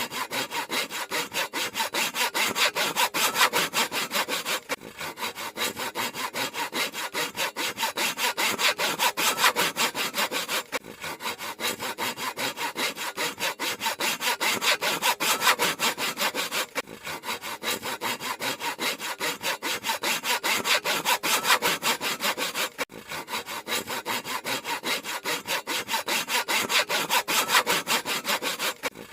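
Handsaw cutting through wood in rapid, even back-and-forth strokes, with a short break about every six seconds.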